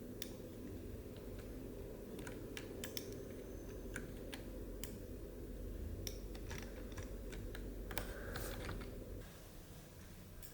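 Scattered light clicks and taps at irregular intervals over a low steady hum, the hum dropping away about nine seconds in.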